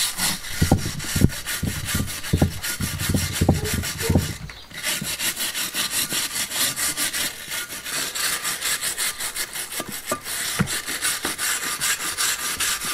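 Hand wire brush scrubbing hard across a large stone slab in rapid back-and-forth strokes, a scratchy rasping with a brief pause about four and a half seconds in and a few low knocks in the first few seconds. The brush is cleaning caked-on dirt off the stone.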